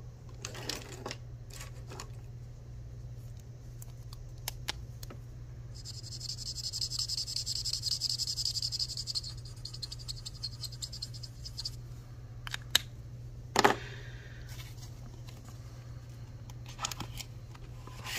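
Marker tip scratching back and forth on paper for about six seconds, colouring in a circle, followed by two sharp clicks a second apart. Soft paper and handling rustles come near the end.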